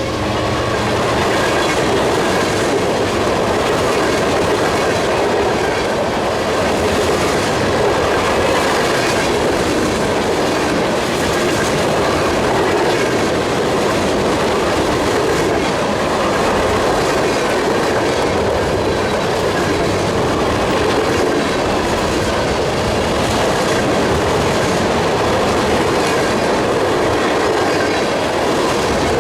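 Freight train cars rolling past at speed, a steady loud rumble and clatter of steel wheels over the rails.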